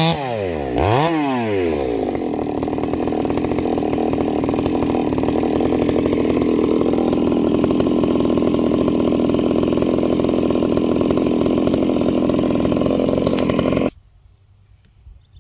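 Husqvarna 390 XP two-stroke chainsaw fitted with a JK ramhorn muffler. It drops off full revs, blips once and settles into about twelve seconds of loaded running as it cuts with a chattery new chain. It stops abruptly near the end.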